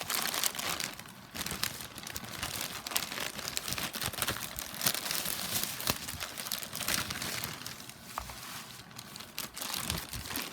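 Packaging crinkling and rustling continuously as it is handled, with many small crackles.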